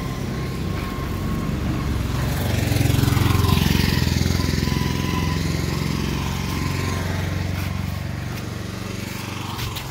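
A motor vehicle's engine running close by, a steady low hum that swells to its loudest about three seconds in and then slowly fades.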